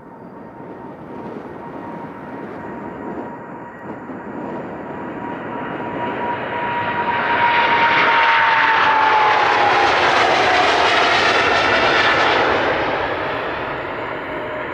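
Jet airliner's engines at takeoff power passing by: the roar builds, peaks about eight to twelve seconds in, then eases, while a thin fan whine slides down in pitch as it goes past.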